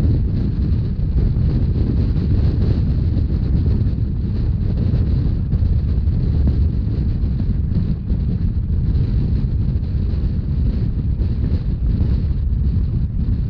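Rhaetian Railway narrow-gauge train running, a steady low rumble with wind buffeting the microphone.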